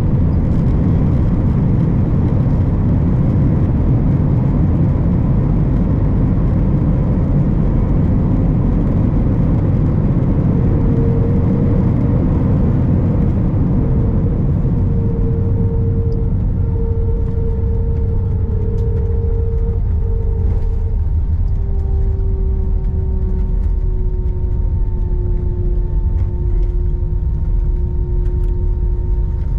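Airbus A321 cabin noise: a loud, steady rumble with an engine whine that slowly falls in pitch while the higher part of the noise eases off.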